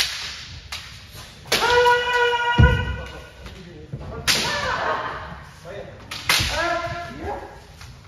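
Kendo practice: bamboo shinai cracking sharply against armour, each strike met by a drawn-out kiai shout, with heavy thuds on the floor. Three strike-and-shout exchanges.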